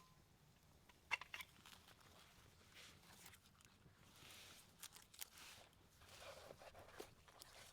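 Faint handling noise: a few sharp clicks and knocks about a second in and again later, with soft rustling between.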